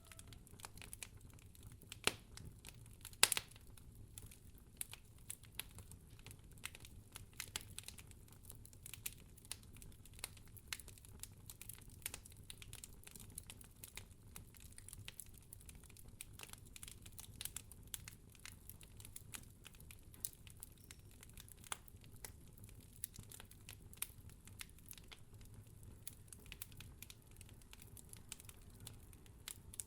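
Wood fire crackling: a low steady hiss with irregular small pops and snaps, two louder pops about two and three seconds in.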